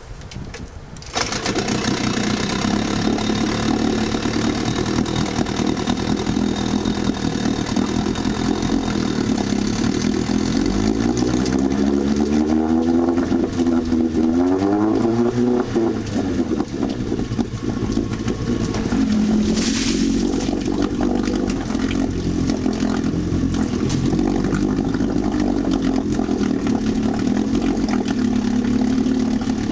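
1964 Evinrude Sportwin 9.5 hp two-cylinder two-stroke outboard catching about a second in and running in a test barrel of water, with the propeller splashing, on its first run after a water pump rebuild. Around the middle the throttle is opened and closed several times, so the engine note rises and falls, and it rises once more, more gently, later on.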